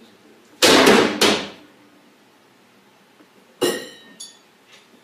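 Kitchen cupboard doors being banged hard: two loud bangs in quick succession about half a second in, then a sharper knock with a brief ringing about three and a half seconds in, and a lighter knock just after.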